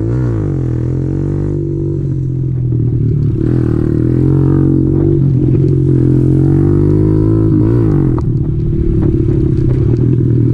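Kawasaki KLX110 pit bike's small single-cylinder four-stroke engine running under way, heard close up from the bike. The revs climb and fall several times with the throttle, dropping sharply near the end.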